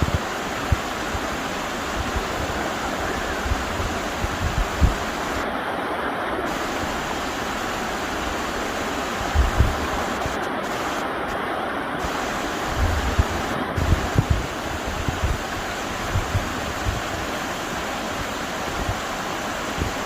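River water rushing steadily over rocks, an even, unbroken wash of sound. Occasional low bumps of wind buffet the microphone.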